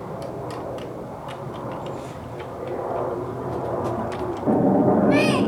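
Faint clinks and splashing of dishes being washed in a tub of water. About four and a half seconds in, a loud low rumble starts suddenly, and a short high squeal with a bending pitch sounds briefly on top of it near the end.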